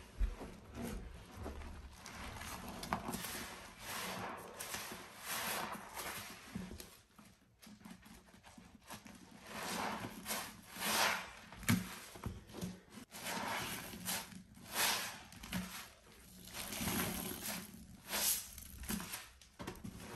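Bare hands squeezing and pressing sponges soaked in thick pine cleaning-paste lather: wet squelching and squishing of sponge and foam, a squeeze every second or two.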